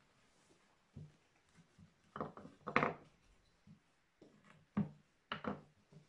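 Wooden-handled carving tools knocking and clattering against a carved wooden relief panel as they are handled and set down, with hands rubbing over the wood between the knocks. A few short, sharp knocks, the loudest a little under three seconds in and again near five seconds.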